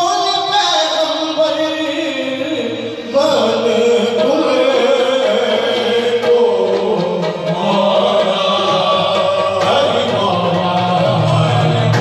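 Qawwali: men's voices singing over two harmoniums. The singing swells louder about three seconds in.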